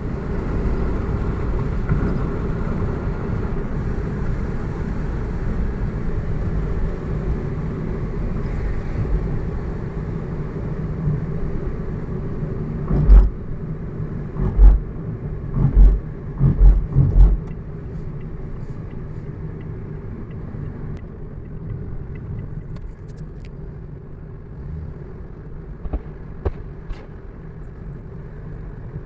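Car driving along a road, a steady low rumble of engine and road noise, with a run of about six heavy low thumps about halfway through and two lighter ones near the end.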